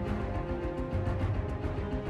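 Outro music: held tones over a steady beat.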